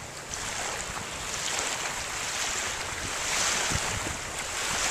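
Pencil scratching across drawing paper in long strokes, a hiss that swells and fades with each stroke.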